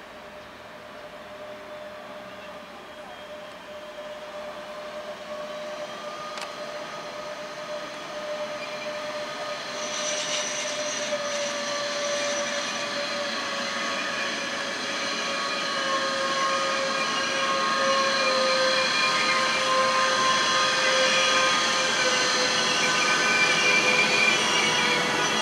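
Electric freight train approaching and running past, growing steadily louder. Several steady, high squealing tones build in from about ten seconds on.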